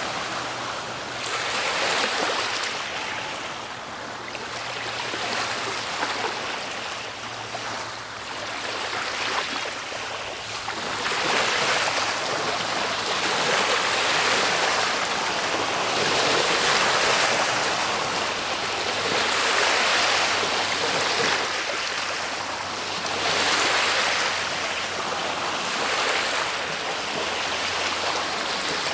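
Ocean waves breaking and washing in, the surf swelling and ebbing every two to three seconds.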